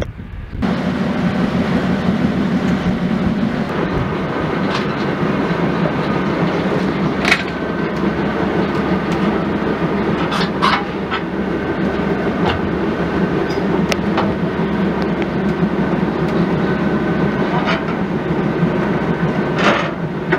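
A boat's engine running steadily with a low hum, heard on deck as the boat manoeuvres at the dock. Several sharp knocks or clanks are scattered through.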